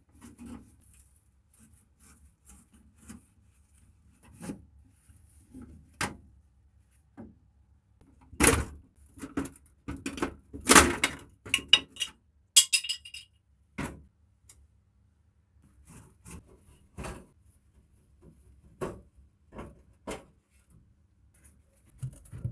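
Hand tools and metal and plastic parts clicking, knocking and clattering as a tabletop water dispenser is taken apart: a screwdriver on rusted screws, the top cover lifted off, pliers on wire connectors. The sounds are irregular and separate, with the loudest run of knocks and a brief metallic ring a little past the middle.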